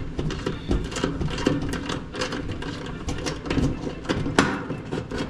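Wrench clicking and metal parts clinking in irregular short knocks as the 10 mm bolt is taken out of the dryer's belt tensioner pulley.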